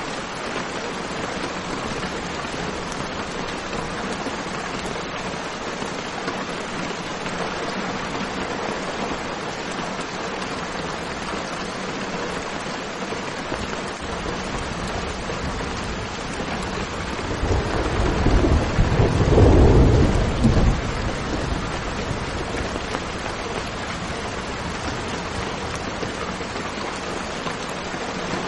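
Steady heavy rain with a roll of thunder rumbling up about two-thirds of the way through, peaking and then fading back into the rain.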